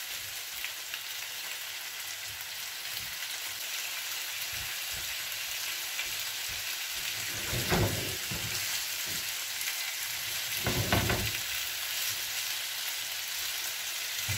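Chicken pieces with onion and tomato sizzling in a frying pan, a steady hiss. About halfway through and again a few seconds later, the tongs knock and scrape against the pan as the pieces are turned.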